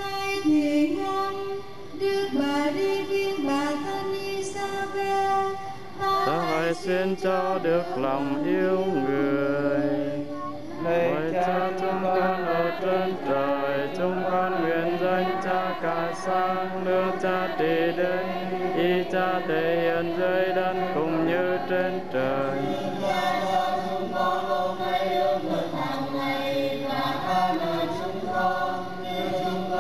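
A choir singing a devotional hymn with musical accompaniment, the voices holding and gliding between notes.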